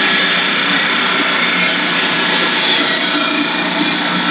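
Corn puff snack food extruder line running: a steady, loud mechanical noise from the extruder, its feeder and conveyors, with several steady humming tones.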